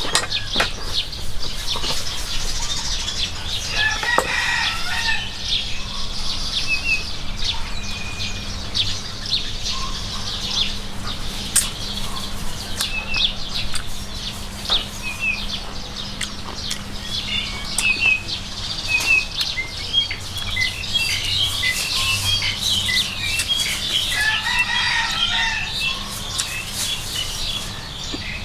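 Dense light crackling and rustling, with birds calling about four seconds in and again near the end.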